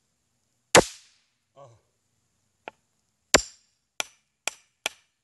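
Claw hammer striking the steel head of a hatchet several times, with small charges of potassium chlorate and aluminium flash powder cracking off on impact. There is a loud sharp crack under a second in, another just past three seconds with a little metallic ring, then three lighter strikes in quick succession and one more loud crack at the very end.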